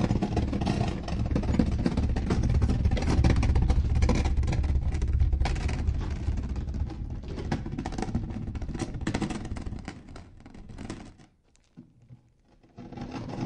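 Stones clattering and grinding together: a dense, irregular run of clicks and knocks over a low rumble. It breaks off about eleven seconds in, falls nearly silent for a second and a half, then starts again.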